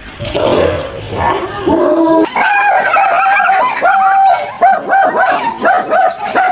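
A small dog barking and yelping in alarm. From about two seconds in it breaks into a rapid run of high barks, about three a second.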